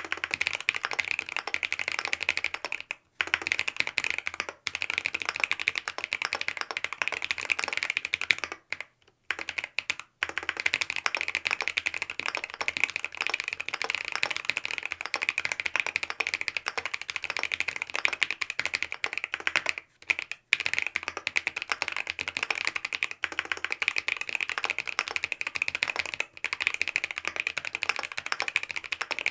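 Fast, continuous typing on a Mont Cervin mechanical keyboard with lubed BSUN OG Holy Panda tactile switches on a polycarbonate plate with foam dampening. The keystrokes run in quick streams, broken by short pauses about three seconds in, around nine seconds in, at about twenty seconds and near twenty-six seconds.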